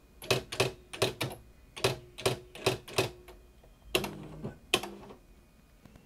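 Smith Corona electronic daisy wheel typewriter, fitted with a script-font daisy wheel, printing text one character at a time as keys are typed. It makes a dozen or so sharp strikes at an uneven pace, with a heavier knock about four seconds in, and stops about five seconds in.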